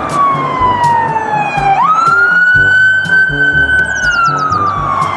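Police car siren on a slow wail: the tone falls slowly, rises quickly about two seconds in, holds briefly, then falls slowly again. Background music with a steady beat plays under it.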